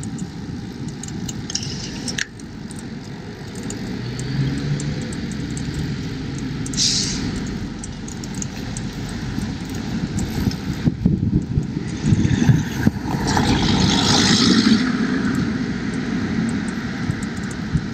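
Town-centre street traffic and road rumble heard from a bicycle-mounted GoPro while riding. A motor vehicle grows louder and passes close about twelve to fifteen seconds in.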